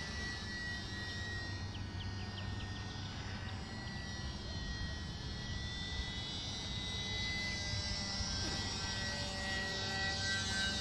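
Champ S+ micro RC airplane in flight, its small electric motor and propeller giving a steady high whine that drifts a little in pitch as it passes overhead.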